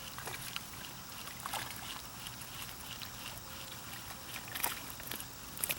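A small hooked fish being reeled in, with light splashing at the water surface and a few short, sharp splashes or clicks scattered through.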